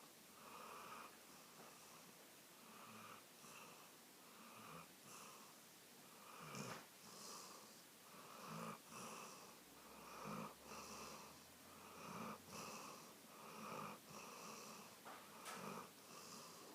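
Sleeping Labrador retriever snoring softly, a raspy snore on each breath in an even rhythm, with a louder breath about every two seconds.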